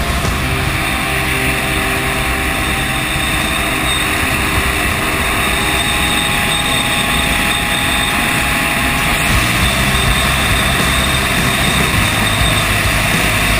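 Steady rush of wind and road noise from a vehicle driving at highway speed, with a low drone of tyres and engine underneath that grows a little fuller near the end.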